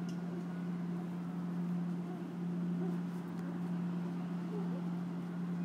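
Steady low electrical hum with faint hiss: the background noise of the recording, with no speech.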